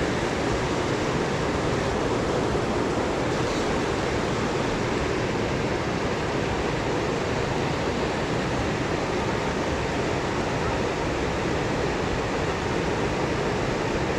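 Steady rushing of river water: an even, unbroken noise with no change.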